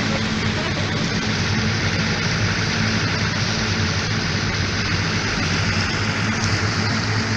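Motorboat engine running steadily under way: a constant low hum with a rush of water and wind over it.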